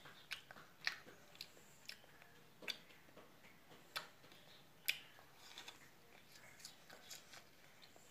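A child biting into and chewing a juicy round fruit: faint, irregular wet clicks and smacks of the mouth, a few sharper ones among them.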